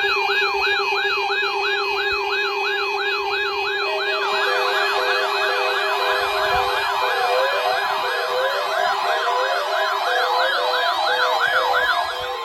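Weather alert radio receivers sounding their electronic siren alarms, set off by the NOAA Weather Radio weekly test. A rising-and-falling wail repeats about three times a second. More alarms join about four seconds in, overlapping in a jumble, and some drop out near the end.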